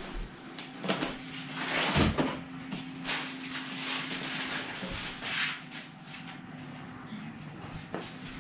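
Cardboard box and packaging being handled: irregular scraping and rustling with a few knocks, over a faint steady hum.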